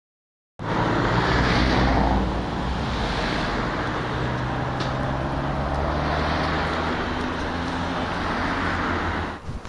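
Road traffic: a steady rumble of passing cars, swelling and easing as vehicles go by. It starts abruptly about half a second in and cuts off shortly before the end.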